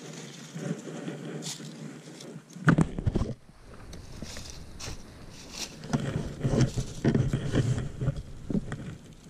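Dry leaf litter crunching and rustling as the seated hunter shifts and handles his rifle, with a sharp handling bump about three seconds in and a stretch of denser crackling near the end.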